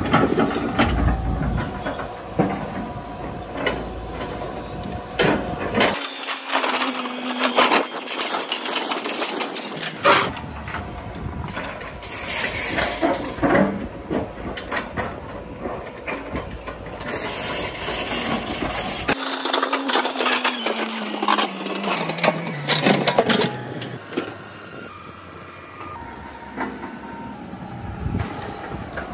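Tata Hitachi 120 and 70 hydraulic excavators working rock and soil: diesel engines running and revving under load, with clanks and knocks of the steel buckets on stone. The engine note falls away about two-thirds of the way through.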